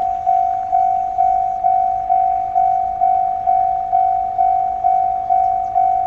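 Japanese level-crossing warning bell ringing: an electronic bell tone struck about twice a second, each strike fading before the next.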